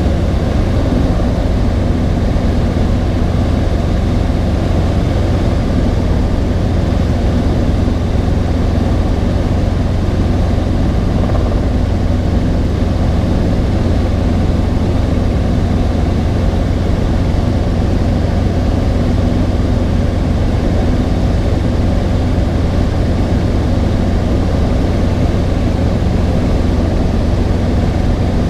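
Robinson R22 helicopter in flight, heard from inside the cockpit: the steady, low drone of its piston engine and rotor system.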